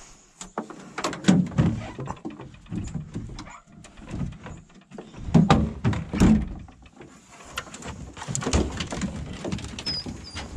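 Hounds shut in an aluminium dog box on a pickup bed whining and yelping in short calls, among knocks and rattles of the box.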